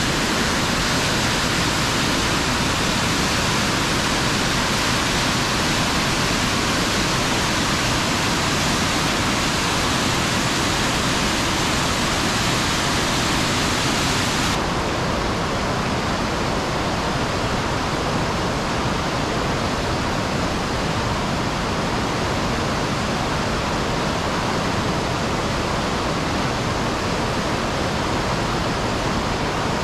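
Waterfall of white water rushing steadily through a rocky gorge: a loud, even rush of water. About halfway through the highest part of the hiss drops away and the sound turns a little duller.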